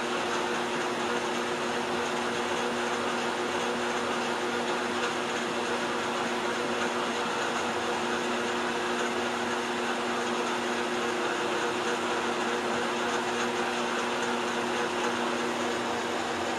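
Metal lathe running steadily through a long cutting pass with a carbide tool on the ride's shaft. It is a constant motor hum with several steady tones over an even hiss.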